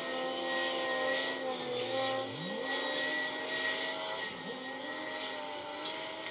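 Heavy diesel machinery working: wheel loader engines revving up and down under load as they push sand, together with the grab crane's engine, the pitch rising and falling several times.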